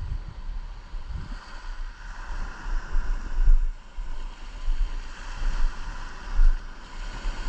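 Wind buffeting the microphone in uneven gusts, loudest about three and a half and six and a half seconds in, over the steady wash of small waves breaking on the beach.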